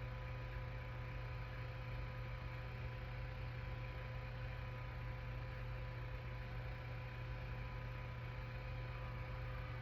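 Steady low hum with faint hiss and a couple of thin steady tones, unchanging throughout: background room tone with no parrot calls.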